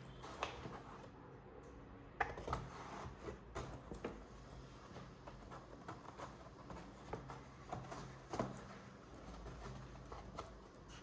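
Packaging and items being handled by hand: scattered rustles, taps and light knocks, some sharper clicks about two, three and a half and eight and a half seconds in. A faint steady low hum runs underneath.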